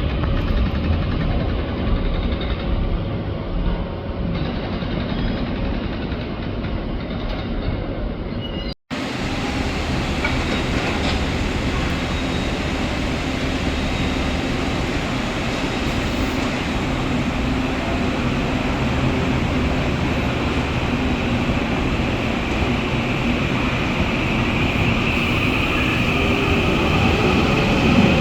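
Taiwan Railways EMU800 electric multiple unit running on the rails with a steady rumble, the sound breaking off briefly about nine seconds in. A high whine grows louder near the end.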